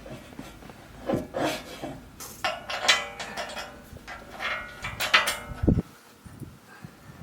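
Irregular knocks, clatters and scraping sounds, as of hard objects being handled, ending with a heavier thump about six seconds in.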